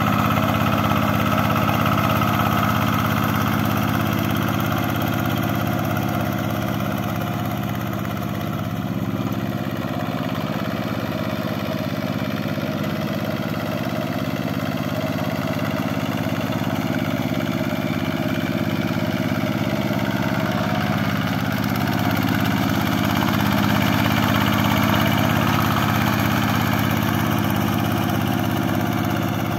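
Single-cylinder diesel engine of a Quick G1000 two-wheel hand tractor running steadily as it drags its cage wheels through the mud of a flooded rice paddy.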